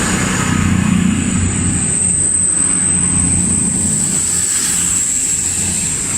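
Diesel passenger train running at the platform: a low engine hum that eases off after about three seconds, over a steady high-pitched whine.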